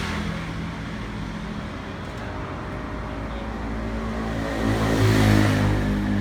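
A motor vehicle's engine running steadily, growing louder for a moment about five seconds in.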